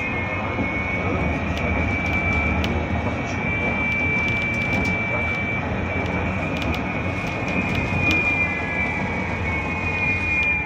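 Inside a moving GT6N low-floor tram: a steady rolling rumble with a high electric whine from the drive, and a few sharp clicks.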